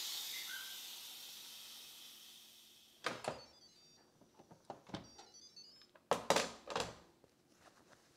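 Instant Pot electric pressure cooker venting the last of its steam through the release valve: a loud hiss that fades away over about three seconds as the remaining pressure bleeds off. Then comes a knock, a few small clicks and two loud clunks as the lid is twisted open and lifted off.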